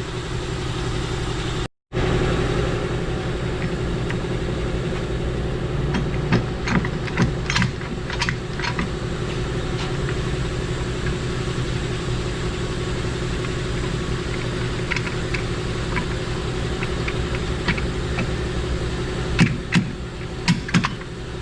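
A steady mechanical hum from a running motor, with scattered metallic clicks and knocks as the rear hub assembly is shaken loose. The knocks come in a cluster about a third of the way in and again near the end.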